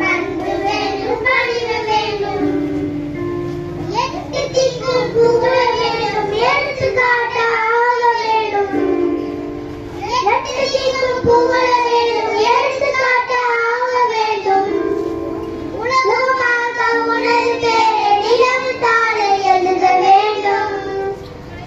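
A group of children singing a song together in chorus, in phrases with brief pauses between lines.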